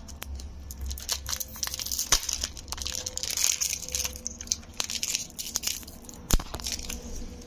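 Clear cellophane lollipop wrapper crinkling and tearing as it is pulled off by hand: dense crackling, busiest in the middle, with one sharp crack about six seconds in.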